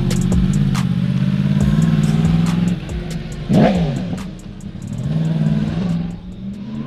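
BMW F 900 XR's parallel-twin engine running steadily, easing off about three seconds in, with a quick rise and fall in pitch a little later. Faint music with a beat plays behind it.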